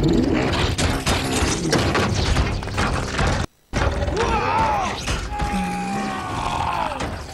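Action-film sound effects of a car attack: repeated crashes and thuds, smashing and shattering, and metallic mechanical sounds, with music underneath. There is a brief silent break about halfway through.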